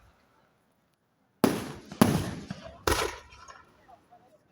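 Fireworks shells bursting: three sharp bangs, the first about one and a half seconds in and the others following within about a second and a half, each trailing off in a fading rumble.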